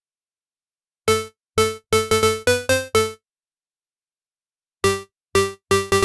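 Cherry Audio Minimode software synthesizer, a Minimoog emulation, playing a pluck preset: short notes, each dying away quickly, forming a melodic phrase. The notes start about a second in, pause for about a second and a half, then start again near the end.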